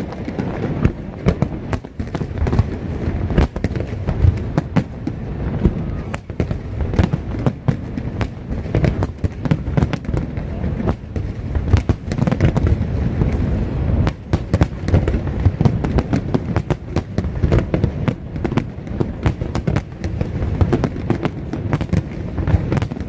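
Aerial fireworks display: a continuous stream of sharp bangs and crackles over a steady low rumble of booming shells.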